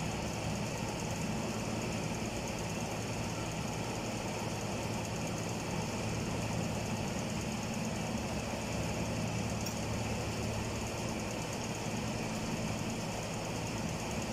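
A steady, engine-like mechanical hum at an unchanging pitch.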